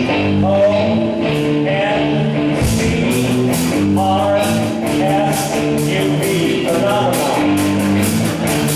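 Live rock band playing a song: guitar and bass with singing, and a fast, even cymbal beat joining about three seconds in.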